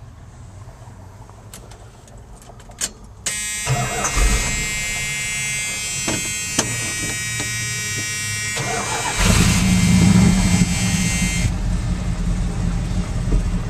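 A few key clicks, then the 1979 Dodge Li'l Red Express's 360 V8 is started. The starter cranks with a steady whine from about three seconds in, and the engine catches about nine seconds in and settles into a steady idle.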